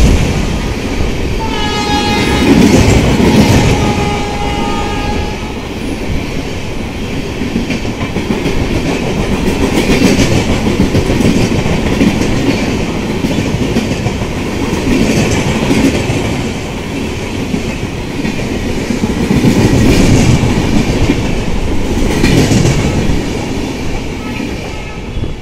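LHB passenger coaches of an express train rushing past at speed: a steady rumble with wheel clatter over the rail joints, swelling each time a bogie passes. About two seconds in, the locomotive's horn sounds from up ahead for a few seconds.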